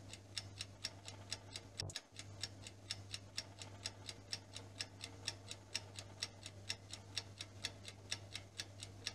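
Countdown-timer sound effect ticking like a clock, faint and even, about four ticks a second over a low steady hum, as the answer time runs out.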